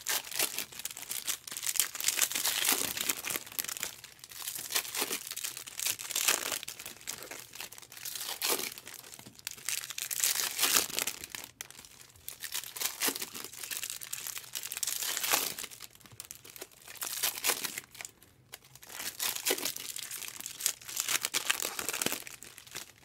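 Plastic or foil wrapping on a box of trading-card packs being torn open and crinkled by hand, in irregular bursts of rustling every second or two.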